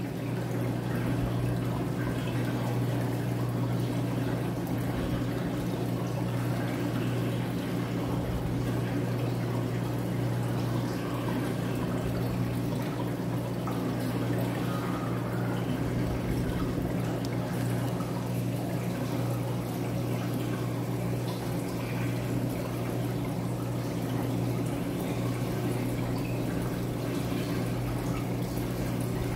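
Reef aquarium frag system's water circulation: water steadily running and pouring over a constant low pump hum.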